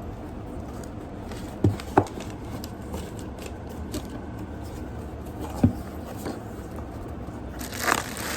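Cardboard parcel box being opened by hand: a few sharp knocks and taps, then a short rustle of packaging near the end, over a steady low background hum.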